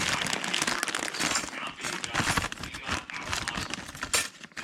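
Crinkling and rustling as packaging and small parts are handled, with many quick irregular clicks and knocks.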